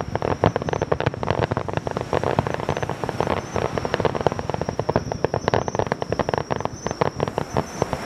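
Aerial fireworks going off in quick succession: a dense run of sharp cracks and bangs, several a second.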